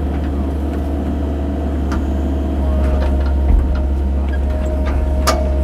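Cat 308 mini excavator's diesel engine and hydraulics running steadily under work, a noisy low drone with a steady whine over it. A few short clanks or clicks break through, and the engine grows a little louder about halfway in.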